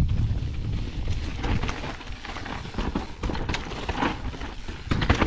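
Nukeproof downhill mountain bike descending a rough dirt and gravel trail, heard from the rider's camera: tyres on loose ground, wind rumbling on the microphone, and the bike rattling and knocking over bumps, with the biggest knocks near the end.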